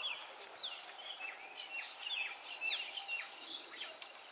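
Birds chirping: many short, quick calls that sweep down in pitch, several overlapping at once.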